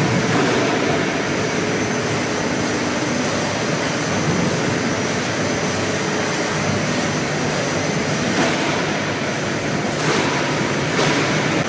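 Steady drone of apple-processing machinery (conveyors, bin tipper and line equipment), with a few brief knocks in the second half.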